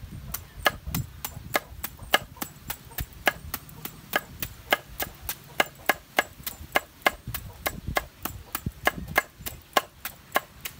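A knife chopping vegetables rapidly and steadily on a board, about four even strokes a second.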